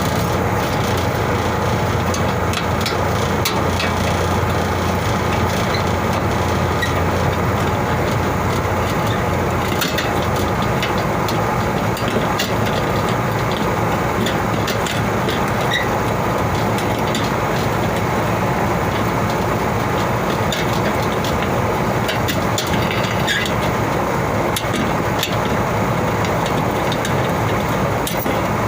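Steady, loud machinery drone with a constant low hum, with scattered sharp clicks and knocks over it.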